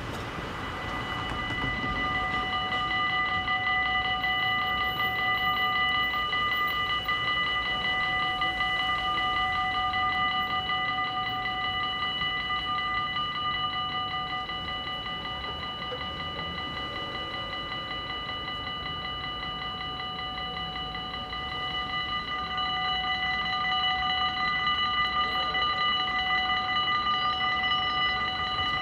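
Dutch level-crossing warning bell ringing with a fast, continuous ring, the signal that a train is approaching and the barriers are about to close. It softens a little midway and grows louder again in the last few seconds as the barrier begins to lower.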